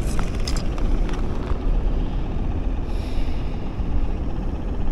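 Wind buffeting the microphone as a steady low rumble, with a few light clicks in the first second.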